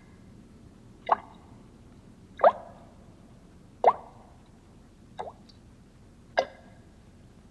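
Water dripping one drop at a time, five separate plops about every second and a quarter, each a short plink that rises in pitch.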